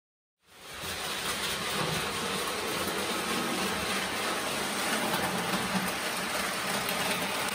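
Prewar Lionel O gauge electric toy train running on tinplate track: a steady whirr and rattle of motor and wheels on the rails, fading in about half a second in.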